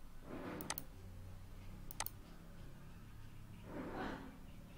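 Computer mouse button clicked twice, a little over a second apart, each a quick press-and-release double tick, selecting line segments to trim in AutoCAD. A soft breathy rush follows near the end.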